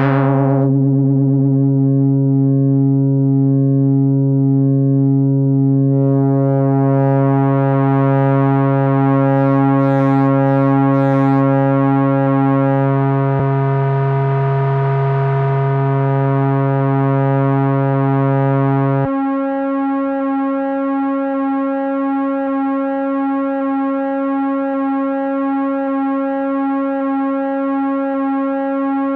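RAVEN analog synthesizer voice holding one steady droning note, a pulse-width-modulated square wave whose harmonics pulse slowly. Its tone brightens and dulls again as the knobs are turned, and its deepest layer cuts out suddenly about two-thirds of the way through.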